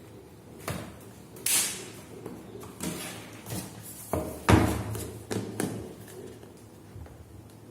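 Cardboard smartphone box being handled and opened: a run of short scrapes, rustles and knocks, the loudest a thump about four and a half seconds in.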